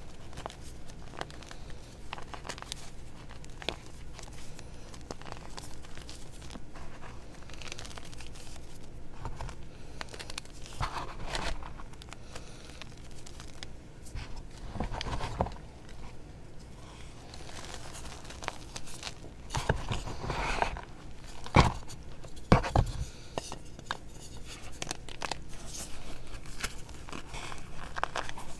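Hands crushing and crumbling re-formed gym chalk chunks in a bed of loose chalk powder: a steady soft crunching and gritty scratching with irregular small cracks, and a few sharper, louder snaps about three-quarters of the way through.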